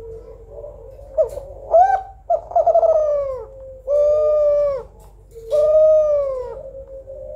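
A female Kelantan spotted dove cooing: a run of low, pitched coos, each up to about a second long, starting about a second in, one of them rolling into a trill near three seconds.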